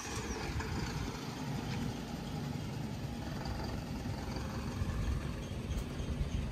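Heavy diesel engine idling: a steady, low, slightly uneven rumble.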